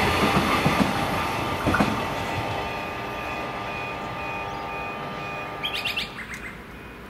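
Alstom X'trapolis 100 electric train running away down the line, its noise fading steadily with a steady whine under it and a single wheel click about two seconds in. Near the end a bird chirps several times in quick succession.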